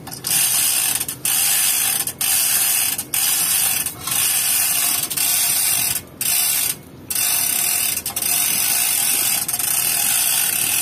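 Manual chain hoist being worked by hand: the hand chain rattles through the block and the ratchet clicks in a string of pulls, with short breaks between them about once a second.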